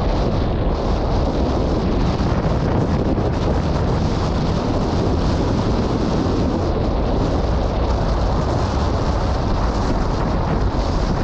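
Strong wind blowing on the microphone, a loud, steady rumble, over the noise of a car driving slowly.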